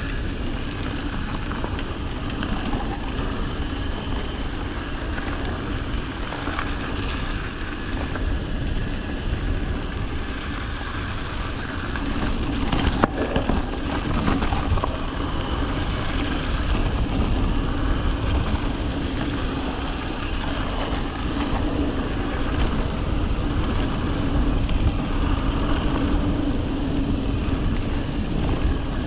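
Mountain bike rolling along a dry dirt singletrack: steady tyre noise on the dirt mixed with wind buffeting the microphone, and one sharp knock from the bike about halfway through.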